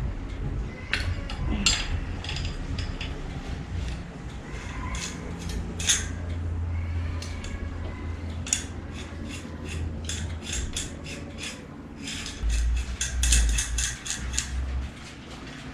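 Small metal clicks and clinks from a bicycle rear-wheel hub being taken apart by hand, as the axle, nuts and spacers are worked loose and turned. The clicks come singly and scattered, with a quicker run of them about twelve seconds in.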